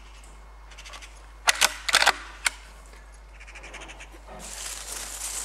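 Handling noise: a quick run of about five sharp clicks and knocks within a second, then a rustling hiss that builds near the end.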